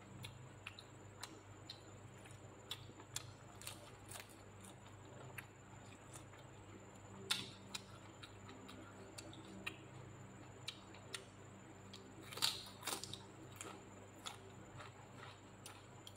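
Close-up eating sounds: scattered soft clicks and smacks of chewing and of fingers picking at food, with louder ones about seven seconds in and around twelve and a half to thirteen seconds. A faint steady hum lies underneath.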